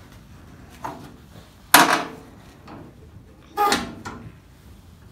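Sheet-metal hood of a 1962 Bolens Ride-a-matic being lowered and pushed into place by hand: a faint knock, then three sharp metal clunks, the last and loudest ringing briefly.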